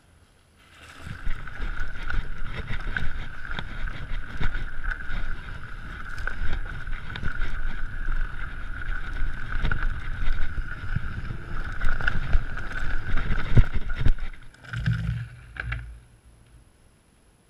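Mountain bike riding fast over a rough dirt and rock trail: continuous rattling and jolting of the bike and tyres on the ground with a steady high buzz, and many sharp knocks over stones. It starts about a second in and stops suddenly after a few heavier thuds about a second and a half before the end.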